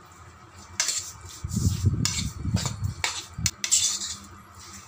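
A spoon scraping and clinking against a bowl as raw chicken pieces are stirred with seasoning, in irregular strokes with some dull knocks in between.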